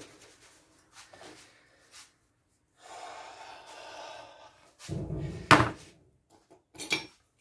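Painting tools being cleaned and handled: a couple of seconds of rubbing, then a loud knock about five and a half seconds in and a lighter clack near the end.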